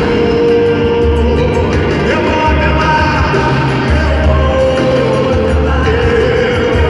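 Live band playing a pagode love song, with a singing voice over a steady bass beat, recorded from the audience.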